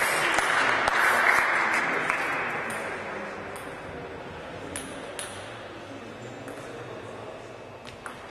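Spectators clapping and calling out in a sports hall, fading out after about three seconds, then a few isolated sharp taps of a table tennis ball.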